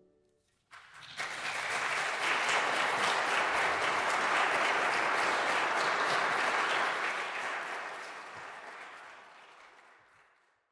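Audience applauding. The clapping starts about a second in, holds steady, then fades out near the end.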